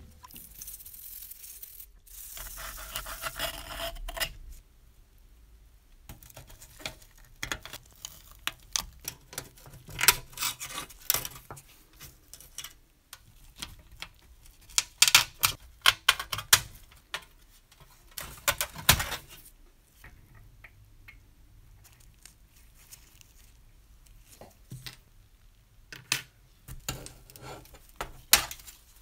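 Irregular metallic clicks, taps and scrapes of a screwdriver and gloved fingers working thin tinplate while prying parts off an old Joustra tin toy bus.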